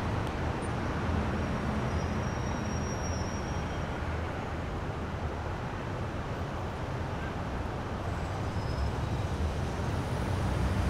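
City street traffic noise: a steady low rumble of passing cars and trucks.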